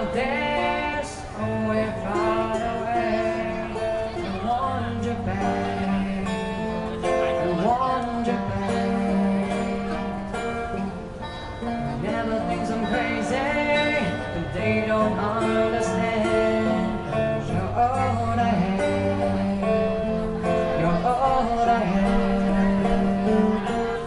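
Live acoustic music: two acoustic guitars playing, with a male voice singing into a microphone over the PA.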